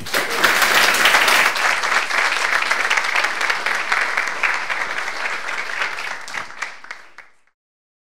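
Audience applauding, many hands clapping together, fading out about seven seconds in.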